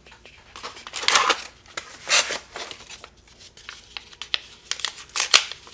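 Small kraft-paper parts envelopes being handled and opened: dry paper rustling in a few short bursts, about a second in, around two seconds and near the end, with light clicks and taps in between.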